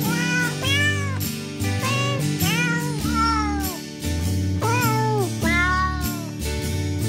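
Music whose melody is carried by cat meows: a string of about half a dozen rising-and-falling meows over a steady backing of low chords.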